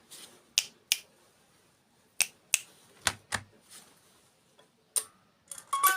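A series of sharp, separate taps or clicks, about ten of them at irregular intervals, some coming in quick pairs.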